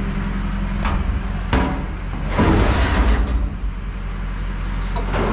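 Farm tractor engine idling steadily, with a couple of sharp knocks and a loud rush of hissing noise about two to three seconds in.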